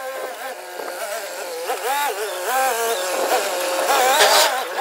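Forklift engine revving up and down as the truck drives with a loaded bucket, in sped-up footage, so the engine note is high-pitched and rises and falls quickly.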